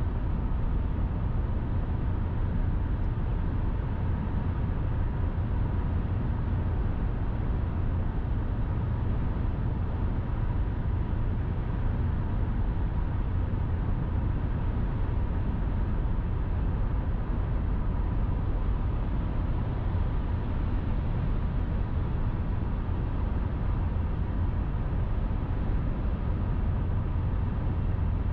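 Steady road and tyre noise of a car cruising at highway speed: a constant low rumble with a thin steady whine above it.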